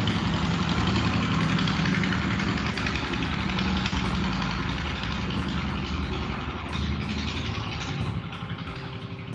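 A vehicle's engine running, a steady low rumble with a noisy hiss above it, slowly growing fainter.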